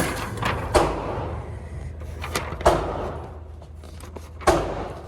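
Four gunshots at irregular intervals, each a sharp crack followed by a short decaying echo, with a fainter shot in between.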